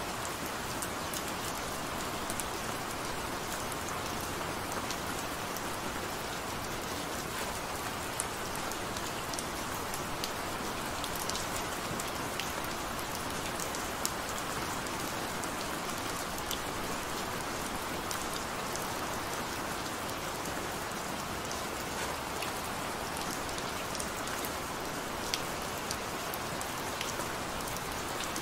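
Steady gentle rain: an even hiss with scattered individual drops ticking through it.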